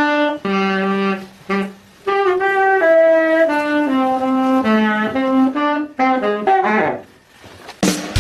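Saxophone playing a slow melody of held notes, one at a time, with short breaks about a second in and near the end.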